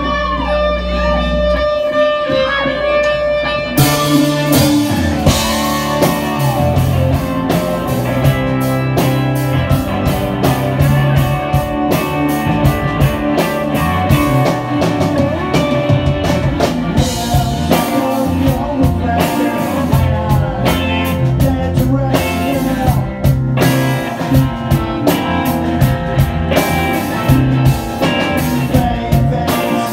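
Live rock band playing. For the first few seconds a violin carries the tune with wavering, gliding notes over low held tones; then, about four seconds in, drums, bass and electric guitars come in together and the full band plays on with a steady beat.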